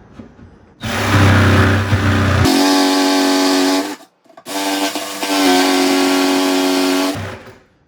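Jigsaw running and cutting through a wooden cabinet panel, in two runs with a short stop about four seconds in.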